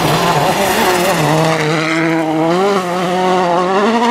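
Volkswagen Polo R WRC rally car's 1.6-litre turbocharged four-cylinder engine at full attack as the car slides past on gravel. The engine note drops about a second in and climbs again over the second half as the throttle is worked through the corner.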